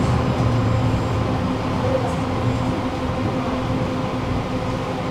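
Tram running along its track, heard from on board: a steady low rumble of wheels on rail with a steady electric hum over it.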